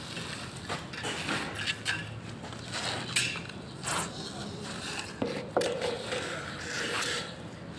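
Irregular knocking and scraping of hard objects, with sharp knocks about three seconds in and again a little after five seconds.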